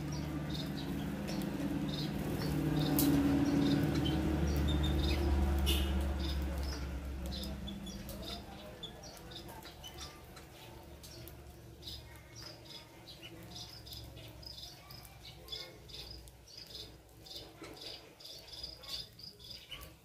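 Small aviary birds, munias among them, giving many short, high chirps while feeding together; the chirping grows busier and more regular in the second half. Underneath, a low rumble swells to its loudest a few seconds in and fades away before the middle.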